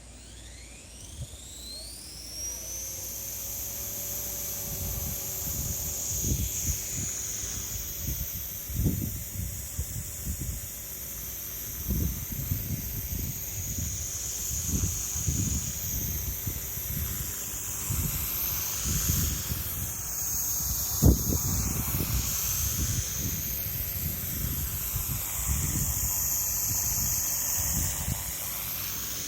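Solo Pro 287 RC helicopter spinning up with a steeply rising whine, then hovering with a high steady whine that dips and wavers in pitch now and then. Strong wind buffets the microphone with gusty low rumbles throughout.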